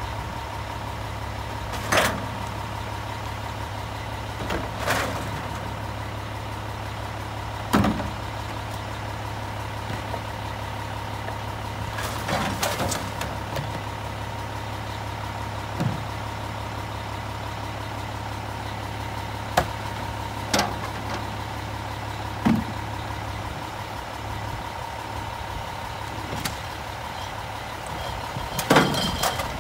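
Diesel engine of a front-load garbage truck idling steadily, with repeated thumps and knocks as bags, tubs and a trash can are emptied into the carry can on its forks.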